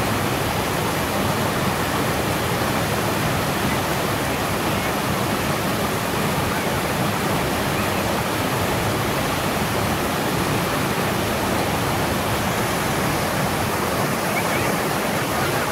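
Loud, steady rush of a waterfall close by, water plunging over a sandstone ledge and splashing onto the rock below, with no let-up.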